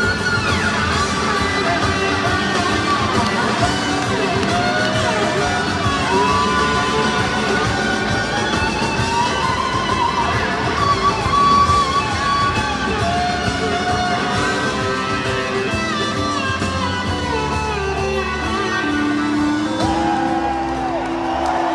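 Live rock band playing, led by an electric guitar solo of long, bending and sliding notes over bass and drums, heard from within an arena crowd.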